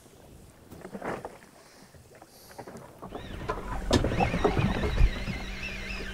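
Background noise aboard a small fishing boat at sea, quiet at first. About halfway in a steady low rumble with a faint hum starts and gets much louder, with a wavering high tone over it.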